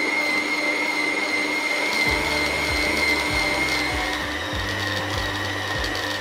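Stand mixer motor running with a steady high whine as its dough hook kneads a yeast dough in a steel bowl. The whine sinks slightly in pitch.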